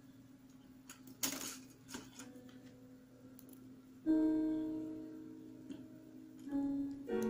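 Background music: slow, sparse instrumental notes that ring out and fade, with new notes about four seconds in and again near the end. A short burst of noise comes about a second in.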